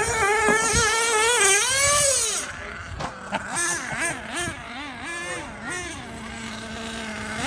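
Small nitro RC car engine running at high pitch, its revs swinging up and down repeatedly as the throttle is blipped, then settling to a steady tone near the end.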